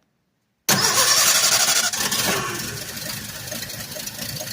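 An engine, whose starter is suspected to be bad, starting: the sound begins suddenly under a second in, loudest for about a second and a half as it cranks and catches. It then settles to a steady idle.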